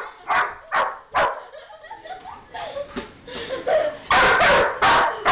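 Dog barking in alarm: a few sharp barks, a quieter pause of about three seconds, then a quick run of loud barks near the end.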